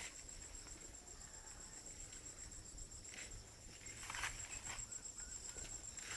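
An insect trilling steadily in a high, pulsing tone, with a few soft scuffs about three, four and five seconds in.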